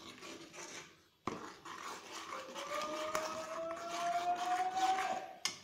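Steel spoon stirring and scraping a thick sambar-powder and tamarind paste around a steel kadai, starting with a sharp clink. Over the scraping, a whistle-like tone rises slowly in pitch through the second half and stops just before the end.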